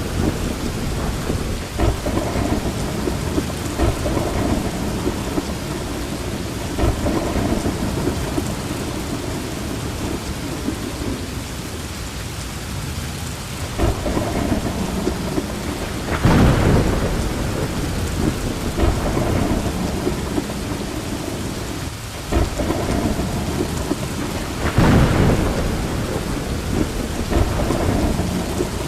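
Steady heavy rain with rolling thunder, several deep rumbles swelling up and fading, the strongest about halfway through and again near the end.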